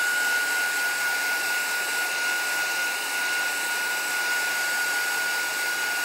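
Craft heat tool blowing hot air to dry wet ink on a card: a steady rush of air with a constant high whine from its fan motor.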